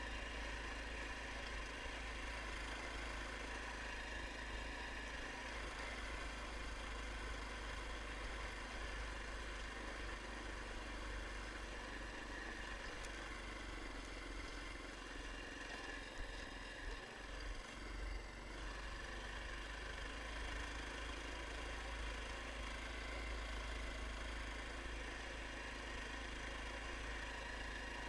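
SR-21 Light Pro motor all-terrain vehicle's engine running steadily, with a brief unevenness about two-thirds of the way through.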